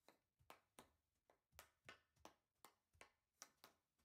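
A hockey stick blade tapping a homemade puck, a small plastic container stuffed with tape, back and forth across carpet while stickhandling. The taps are faint and sharp, about three a second in an uneven rhythm.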